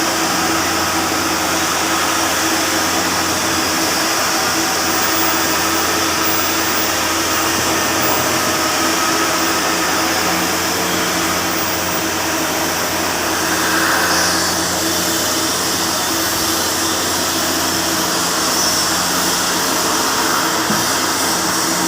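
Steady machine noise of welding equipment running: a low hum under a broad hiss, holding even without a break.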